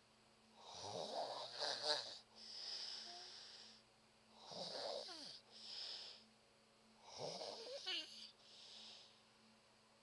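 A sleeping woman snoring: three snores about three seconds apart, each followed by a hissing breath. A brief whistling squeak sounds near the end of the third snore.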